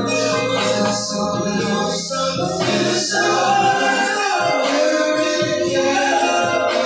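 Music with sung vocals, choir-like backing voices and a steady beat.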